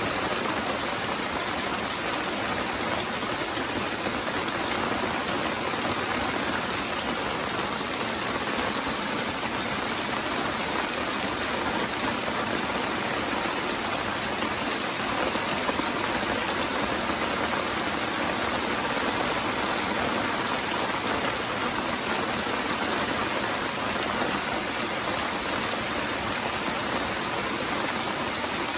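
Steady rain falling, an even hiss of many drops with little low rumble and no single loud event.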